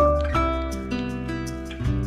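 Background music: a melody of plucked notes changing every fraction of a second over a sustained bass.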